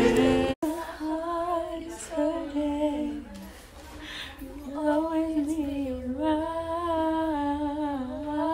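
A girl's voice singing a slow, wavering melody alone, without accompaniment. In the first half-second, a strummed string instrument is heard before it cuts off abruptly.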